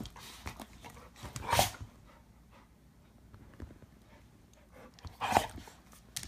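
A pit bull and a Labrador play-fighting, with two short, loud sounds from the dogs, one about a second and a half in and one about five seconds in, and quieter scuffling between.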